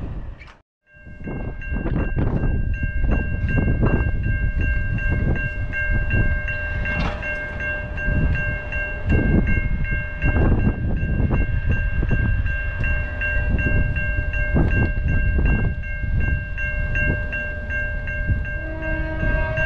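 Level crossing warning bell ringing steadily while the gates lower, with gusty wind on the microphone. About a second before the end, a locomotive's horn starts to sound from the approaching train.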